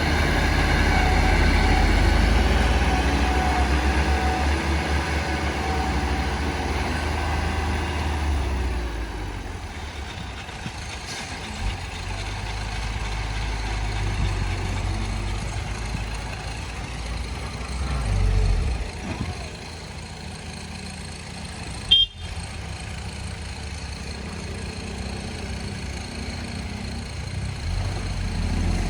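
Heavy diesel earthmoving machinery running, loud for the first several seconds and then easing off, with a brief swell about 18 s in and a single sharp click a few seconds later.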